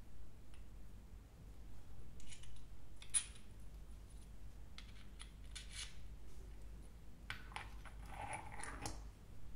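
Small machined aluminium parts of a collectible robot figure clicking and clinking lightly as they are handled and fitted together, with one sharper click about three seconds in and a short stretch of metal sliding and rubbing near the end.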